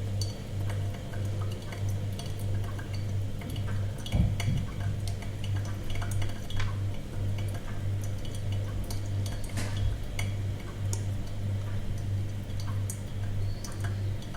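Coffee machine running with a low hum that pulses about twice a second, over scattered small ticks and clinks, and a dull thump about four seconds in.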